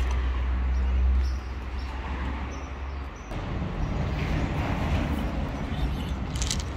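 Kittens crunching dry kibble close up, an irregular crackle of chewing that thickens from about three seconds in. A low steady rumble fills the first second and a half, then stops.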